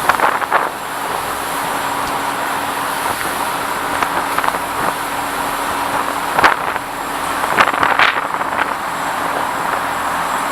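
Bangkok canal express boat under way: its engine runs with a steady hum over a continuous rush of noise, with a few short, louder bursts about six and eight seconds in.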